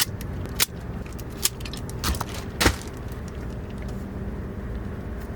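Handling of parcels and return shipping labels: a few sharp clicks and rustles in the first three seconds, then quieter, over a steady low hum.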